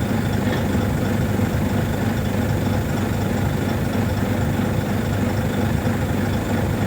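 Heavy diesel machinery engine running steadily with a deep rumble, from an excavator loading a dump truck.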